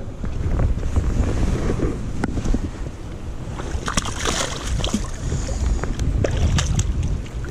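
Wind buffeting the camera microphone over a creek, with a burst of splashing about four seconds in as a hooked steelhead thrashes in shallow water at the bank.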